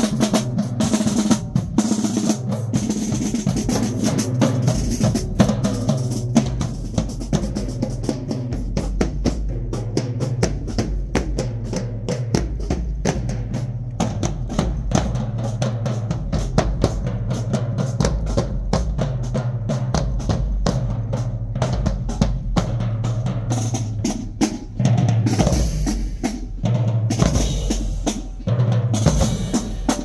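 Marching band drumline playing a cadence while marching: rapid snare drum strokes and rolls over bass drums at several pitches, with cymbal crashes.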